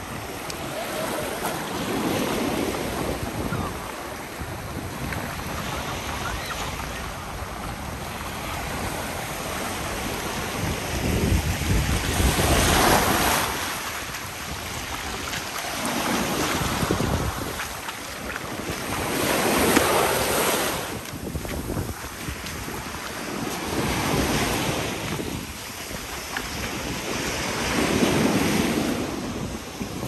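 Sea waves breaking and washing up the beach in repeated surges a few seconds apart, with wind buffeting the microphone.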